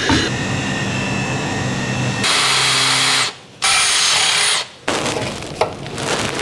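Cordless drill running in two bursts of about a second each, with a brief stop between them.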